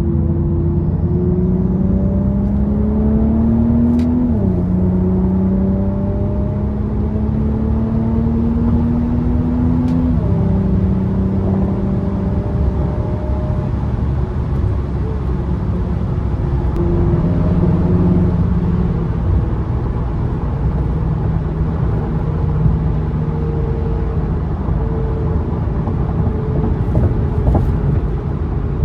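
Infiniti Q50's engine pulling under acceleration through the gears: the pitch climbs steadily, drops at an upshift about four seconds in, climbs again and drops at another shift about ten seconds in, then holds steadier at a cruise. A constant low road rumble runs underneath.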